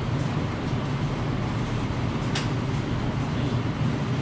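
A 1981 Suzuki GS650's inline four-cylinder engine idling steadily, with one sharp click about halfway through. The mechanic thinks one carburetor is flooding, so that cylinder is not firing as hard as it could.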